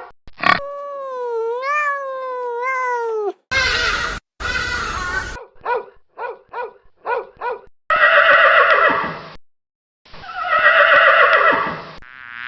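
A string of separate animal calls cut one after another: a long call that wavers up and down in pitch, two short harsh rasping calls, a quick run of about five short calls like a horse's whinny, then two long rough calls.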